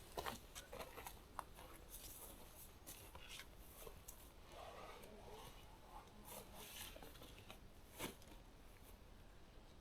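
Near silence with faint rustling and a few light clicks from gear or clothing being handled, one sharper click about eight seconds in.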